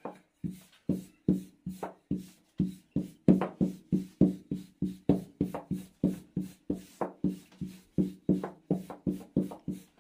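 Rhythmic wooden knocking, about three knocks a second and uneven in strength, each with a short hollow ring: a thin baklava rolling pin (oklava) knocking on a wooden board as the dough sheets are rolled out by hand.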